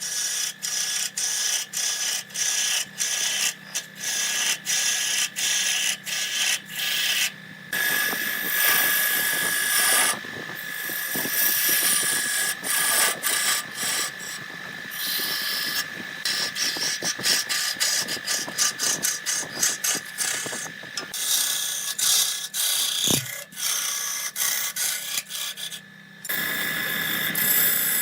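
Wood lathe running with a steady high whine while a turning tool scrapes and cuts the spinning wood. For the first several seconds the cuts come in short strokes about twice a second, then in longer continuous passes.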